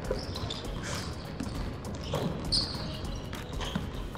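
A basketball being dribbled on a hardwood gym floor, with sneakers squeaking on the floor now and then.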